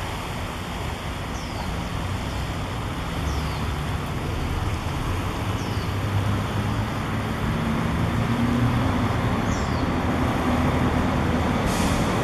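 Steady low engine hum and road-noise rumble of motor traffic, growing gradually louder, with a short high falling chirp heard four times.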